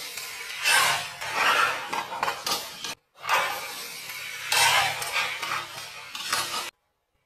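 Die-cast toy cars clattering on plastic track, in two edited bursts of about three and a half seconds each. Each burst has several louder clacks and cuts off abruptly.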